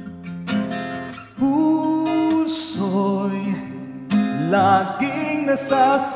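Man singing a Filipino (OPM) love ballad over strummed acoustic guitar accompaniment. The guitar plays alone at first; the voice comes in strongly about a second and a half in and holds notes with vibrato near the end.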